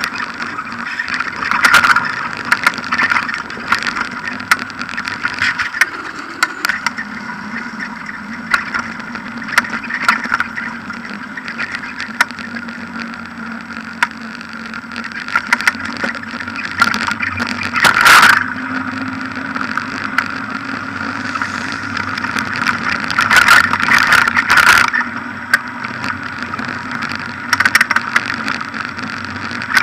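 A bicycle and its mounted action camera rattling and knocking as it rolls over paving slabs, over a steady drone. The hardest jolts come just past the halfway point and again in a longer burst of rattling a few seconds later.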